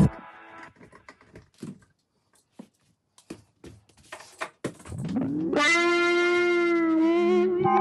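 Faint scattered clicks and taps for about five seconds, then background music comes in with one long held note that slides up into pitch and wavers slightly near the end.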